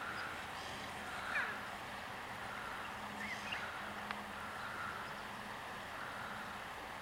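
Quiet open-air riverside ambience with a steady hiss and a faint low hum, broken by a few short bird chirps, the loudest about a second in, more around three seconds, and a single sharp click near four seconds.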